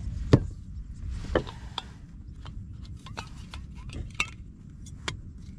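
Scattered sharp clicks and light metallic knocks from handling a portable camping gas stove's hose and screwing its fitting onto a gas canister, over a steady low rumble.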